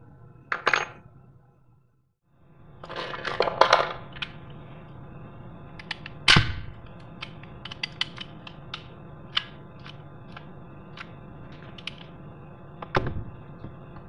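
Metal clinks and clicks of locking pliers being handled and clamped onto a euro cylinder lock in a door. There are louder clanks about a second in, a cluster around three to four seconds, one about six seconds in and one near the end, with many lighter clicks between.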